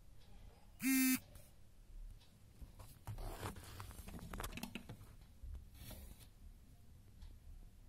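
Quiet rustling and scraping, typical of a phone being handled and moved around, mostly in the middle of the stretch. About a second in comes one short, loud buzzing tone of steady pitch.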